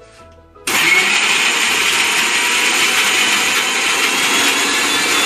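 Electric mixer grinder switched on under a second in and running loud and steady, grinding nuts, sugar and khoya into a paste.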